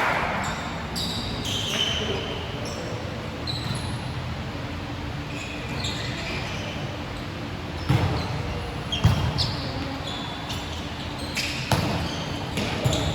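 Basketball game in a gym: the ball bouncing and sneakers giving short high squeaks on the court, with sharp thumps about eight and nine seconds in and again near the end, over a steady echoing background of the hall.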